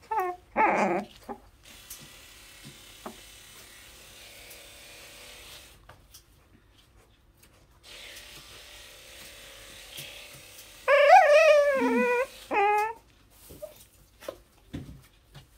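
Muzzled corgi puppy whining and yelping in protest at being brushed. There is a short cry right at the start, then a loud wavering whine about eleven seconds in and a shorter one just after it.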